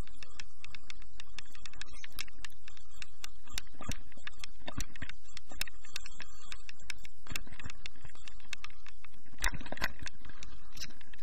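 Wind buffeting the microphone while a snow scooter rides down a bumpy snowy slope, with many irregular knocks and rattles from its frame and runners over the snow. The knocks come thicker and louder near the end.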